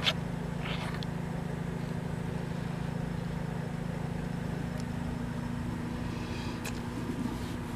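A steady low mechanical hum, with a sharp click right at the start and a short hiss about a second in.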